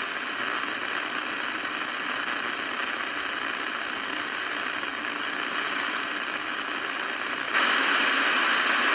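CB radio receiver hiss: steady static with no voice on the channel between transmissions. It jumps louder about seven and a half seconds in.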